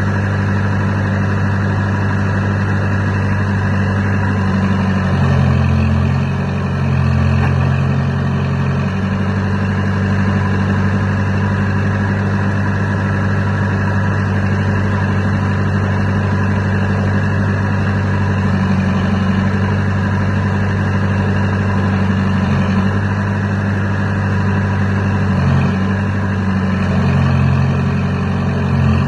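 Caterpillar diesel engine idling steadily, its low note shifting slightly a couple of times.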